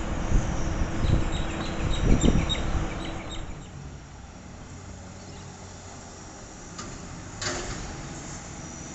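Garbage truck's diesel engine running with a low rumble as it drives off, fading about three and a half seconds in to a quieter background drone. A short sharp clatter about seven and a half seconds in.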